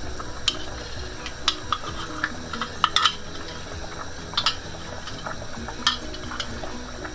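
A spoon stirring a thick, creamy stew in a steel stockpot, with scattered sharp knocks and scrapes against the pot, loudest around three seconds in. The sauce is being thickened with cornstarch. Faint background music plays under it.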